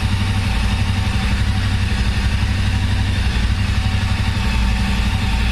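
Royal Enfield Continental GT 650's 648 cc parallel-twin idling steadily on its stock exhaust, just jump-started from a flat battery.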